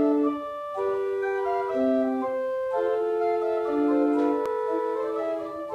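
Binder pipe organ playing a slow passage of held chords, several notes sounding together and changing about once a second.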